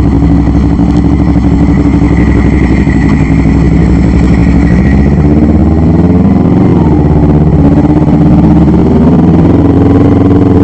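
Motorcycle engine running while ridden, heard from on the bike, loud and steady, its note shifting in pitch about halfway through.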